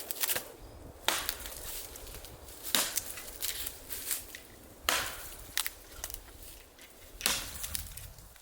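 Wood being chopped: four sharp strikes spaced about two seconds apart, with a few lighter knocks between them.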